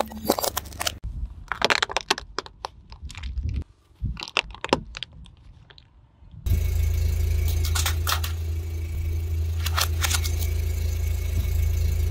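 A car tyre rolling over and crushing small objects: a dense run of cracks and snaps as coloured bulbs and a plastic action figure break under it. About six and a half seconds in, a car engine running steadily close by takes over, with a few sharp snaps over it as the wheel rolls onto a row of long balloons.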